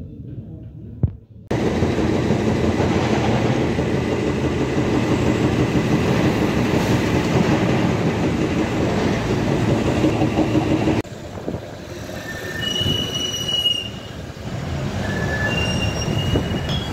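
A vehicle in motion heard from on board: a loud, steady rumble and rattle that starts abruptly, drops to a quieter rumble about eleven seconds in, with several short high-pitched squeals near the end.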